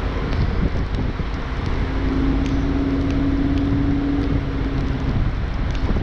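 Heavy logging equipment running: a steady loud rumble and rushing noise, with a steady whine that rises out of it from about two to five seconds in.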